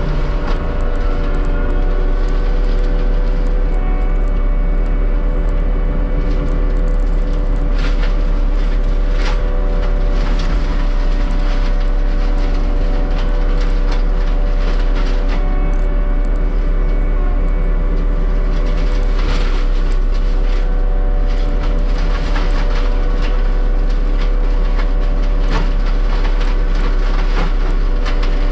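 Diesel land-clearing machinery running steadily under load, with scattered sharp cracks and snaps of brush and wood breaking.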